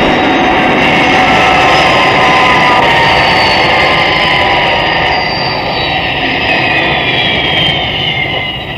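Thunderbird 1's jet engines during a vertical landing: a loud jet rush with whining tones that slowly glide downward, easing off near the end as the craft settles.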